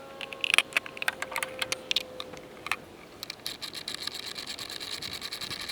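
A scatter of sharp clicks and taps, then from about three seconds in a fast, steady run of ticking.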